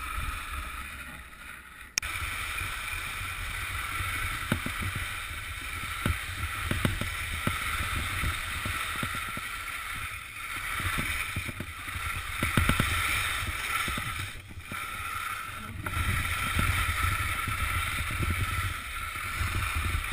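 Skis sliding and scraping over firm spring snow on a downhill run, a steady hiss with short scrapes at the turns. Wind rumbles on the microphone underneath. The sound jumps abruptly louder about two seconds in.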